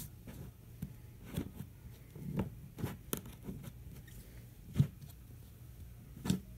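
Cloud slime handled by hand, pulled and pressed against the table, with quiet, irregular sticky pops and clicks; one louder pop about five seconds in.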